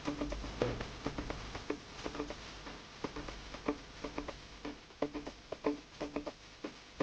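Soft background music of plucked guitar notes, several short notes a second.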